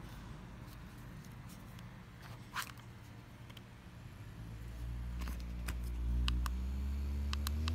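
JisuLife handheld fan switched on: its small motor hums while the airflow buffets the microphone with a low rumble. A few sharp button clicks come in the second half, and the motor's pitch rises near the end as the fan speeds up.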